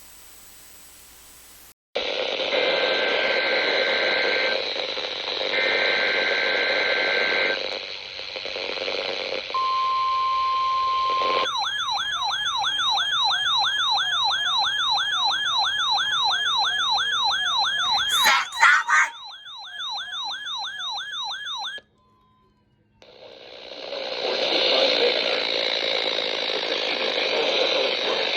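Emergency Alert System test tones heard through radio static. There are two bursts of warbling SAME data tones, then a steady alert tone for about two seconds. Then comes a fast-warbling, siren-like alert tone sweeping up and down about three times a second for roughly ten seconds, broken by a brief crackle near its end; after a second of silence the static returns.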